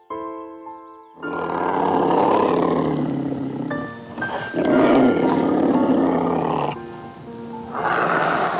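Tiger roaring: three long, rough roars, starting about a second in, again midway and near the end, over soft background music.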